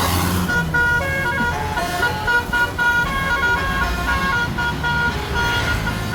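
A bus's 'telolet' multi-tone air horn playing a quick tune of short stepped notes, starting about half a second in, over the low rumble of the bus engine.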